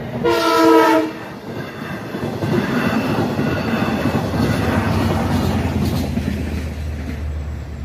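Air horn of an LIRR diesel push-pull double-deck passenger train, one short blast of about a second, the last note of its crossing signal. It is followed by the train running past, with steady wheel and rail noise and a low engine drone that grows near the end.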